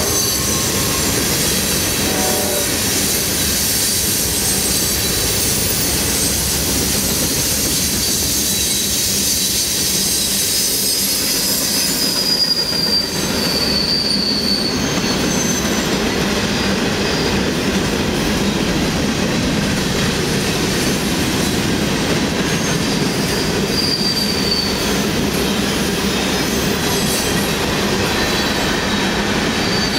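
A CSX freight train of loaded hopper cars rolling past: a steady rumble and clatter of wheels on rail, with high-pitched wheel squeals coming and going, clearest about halfway through and again near the end.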